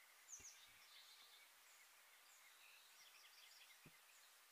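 Near silence: faint birds chirping here and there, with two soft low thumps, one about half a second in and one near the end.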